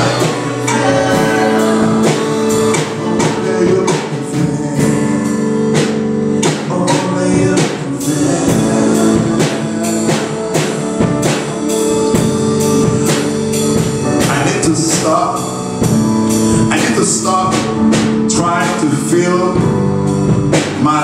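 Live worship band playing a slow song: a singer over sustained digital-piano chords, with drum and cymbal hits.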